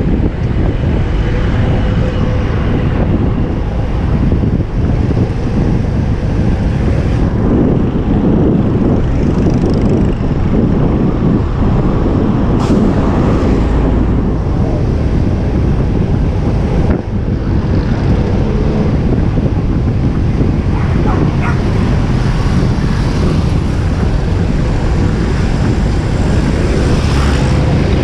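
Wind rushing over the microphone of a camera on a moving road bike, with road traffic underneath. Near the end a motor vehicle's engine comes in close.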